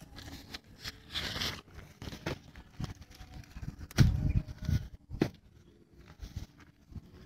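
A hand hoe chopping into dry soil and grass: irregular dull thuds, the loudest about four seconds in and again a second later, with dry grass rustling and crackling between strikes.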